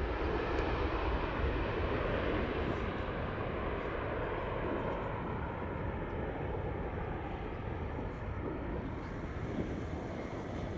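Jet airliner engine noise: a steady roar that eases slowly, from an airliner climbing away just after takeoff, with a taxiing Airbus A380 on the ground.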